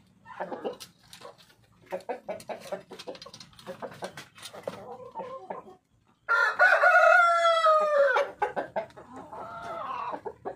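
Barred Plymouth Rock chickens clucking softly, then about six seconds in the rooster crows loudly for about two seconds, falling in pitch at the end, followed by a few more calls.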